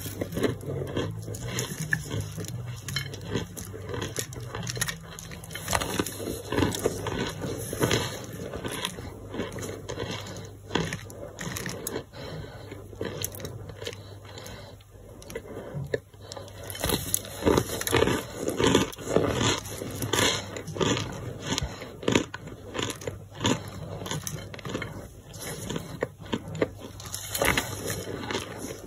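Crumbly white boiled brick being crushed by a gloved hand: a dense, irregular run of dry crunching and crackling as chunks break and crumble into powder, with louder bursts of crunching now and then.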